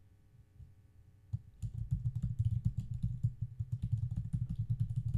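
Typing on a computer keyboard: a fast, steady run of key clicks that starts about a second and a half in.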